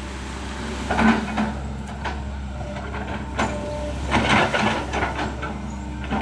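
Excavator engine running steadily while it knocks down and chips oil palm trees, with irregular knocks and cracks, the busiest stretch about four seconds in.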